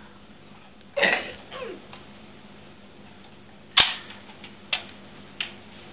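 A few sharp plastic clacks and knocks from small toy cars being crashed together: a falling swoosh about a second in, the sharpest clack near four seconds, then two shorter knocks about a second and a half apart near the end.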